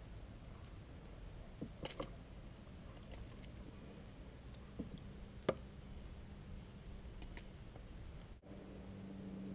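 Faint handling sounds on a plastic sit-on-top kayak as a caught bass and tackle are handled: a few sharp clicks and taps, the loudest about five and a half seconds in, over light wind noise. Near the end the sound cuts and a steady low hum takes over.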